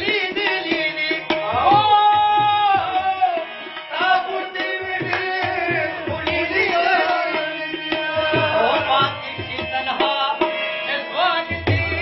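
Live Pashto ghazal music: tabla drumming in a steady rhythm under a harmonium and rabab carrying a gliding melody.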